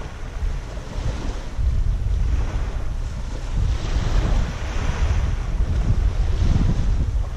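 Wind buffeting an action camera's microphone in uneven gusts, a heavy low rumble with a hiss that swells and fades.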